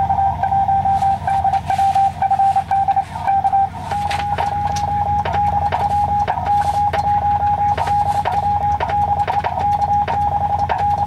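Morse code on a ham radio transceiver: a steady beep near 800 Hz keyed into dots and dashes. From about four seconds in it is being sent by hand on a telegraph key, whose contacts click with each element.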